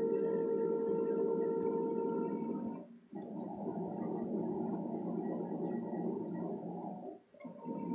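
A steady hum with a held tone, cutting out briefly about three seconds in and again near the end, with the tone gone between the two breaks. Over it, a few faint light ticks of a lock pick working the pin stacks of a Falcon 7-pin interchangeable core.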